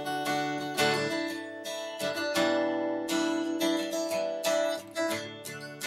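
Background music: strummed acoustic guitar chords, a strum roughly every half second.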